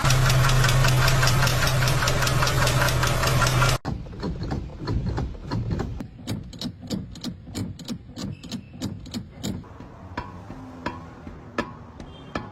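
Vehicle engine running loudly with a steady low hum, cutting off abruptly about four seconds in. It is followed by a quieter run of regular sharp knocks, about four a second, the kind of knocking noise taken for an under-chassis problem.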